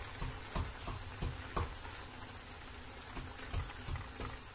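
Ground-meat filling simmering and sizzling in a stainless steel frying pan, with a wooden spatula stirring tomato paste into it, its strokes giving irregular taps and scrapes against the pan.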